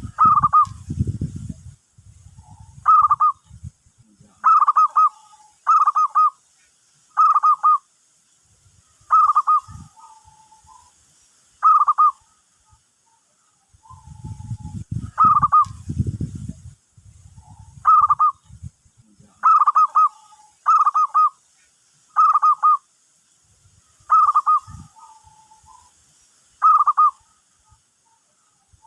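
Zebra dove (perkutut) calling: short, bright cooing notes repeated about every second or so, some in quick pairs, with fainter lower notes between them. A low, rough sound comes in twice, near the start and about halfway.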